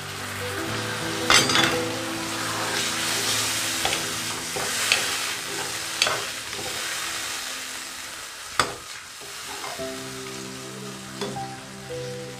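Egg curry masala sizzling in a hot nonstick kadai as water is poured in and stirred with a steel spoon. The spoon clinks sharply against the pan a few times, loudest about two-thirds through, and the sizzle softens after that.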